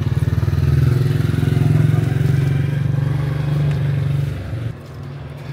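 A small motorcycle's engine running as it rides past close by, a low pulsing engine note that drops away about four and a half seconds in.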